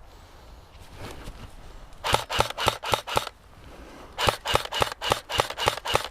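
Airsoft rifle firing two rapid strings of shots, about five sharp cracks a second: a short string about two seconds in, then a longer one from about four seconds in to the end.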